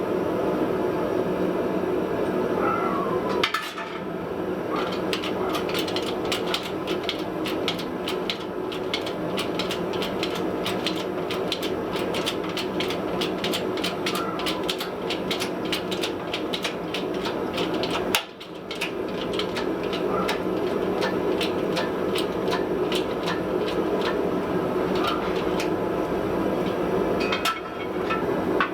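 Fast, evenly paced hammer blows on iron being forged, about four a second, over a steady background noise. The blows break off briefly a few times.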